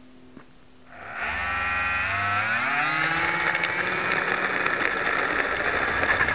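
Small electric RC plane motor and propeller, heard up close from a camera on the plane, spinning up about a second in: a whine that rises in pitch over about two seconds, then holds steady and high at full throttle for the launch.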